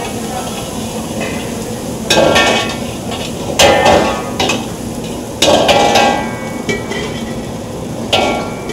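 A long steel ladle scraping and stirring in a large iron kadai, striking the pan four times with ringing metallic clangs a second or two apart, over a steady sizzle of onions and tomatoes frying in oil.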